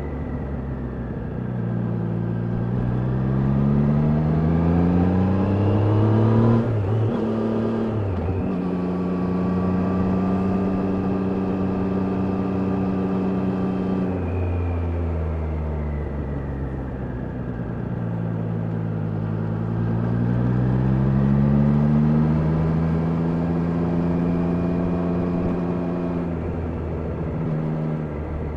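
Triumph Daytona 660's inline-three engine pulling under way. Its pitch climbs over the first six seconds, breaks briefly for a gear change, then holds steady at a cruise. It falls away from about 14 seconds in, climbs again and holds steady near the end.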